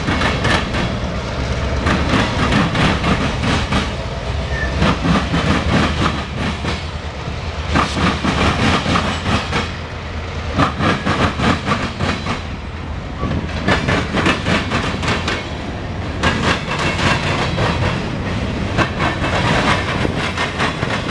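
CSX local freight train rolling past, its wheels clacking over rail joints in repeated groups of clicks over a steady low rumble.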